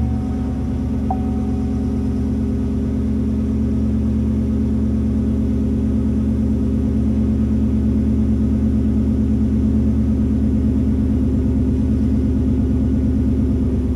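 The 2005 Chevy Silverado 2500HD's 6.0L V8 idles steadily. Its exhaust, with Magnaflow hi-flow cats, 3-inch H-piped true duals and Flowmaster Super 44 mufflers, is heard from inside the cab.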